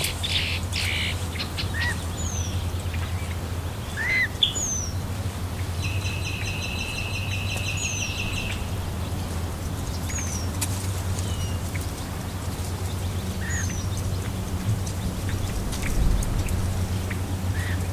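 Wild birds calling: short, high, falling chirps every few seconds and one buzzy trill about six seconds in lasting a couple of seconds, over a steady low hum.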